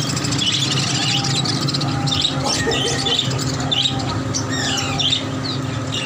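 A large flock of caged budgerigars chirping and squawking together in a constant chatter, over a steady low hum.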